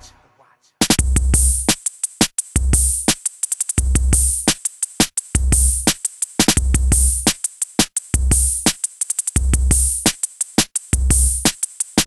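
Background music with a drum-machine beat: heavy bass hits about once a second and sharp percussion between them, starting about a second in after a brief silence.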